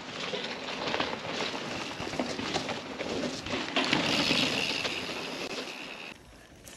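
Specialized Stumpjumper Evo mountain bike riding down a dirt forest trail, its tyres rolling and crackling over dirt and twigs, getting louder as it comes closer. A steady high buzz joins the rolling noise for a couple of seconds at its loudest, and the sound drops away abruptly near the end.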